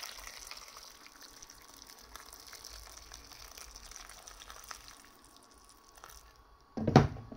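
Water poured in a steady stream into a pot of smoked fish and vegetables, splashing onto them; the pour stops about six seconds in. A sharp, loud knock follows near the end.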